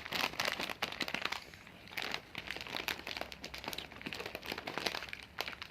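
Plastic snack packet crinkling and rustling in the hands, with many small irregular crackles and clicks.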